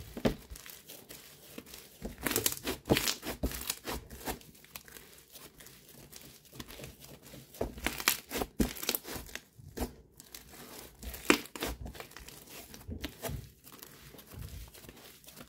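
Snowflake slime being squished, stretched and pulled apart by hand, giving irregular bursts of crinkly crackling and tearing. The loudest bursts come a couple of seconds in and again past the middle.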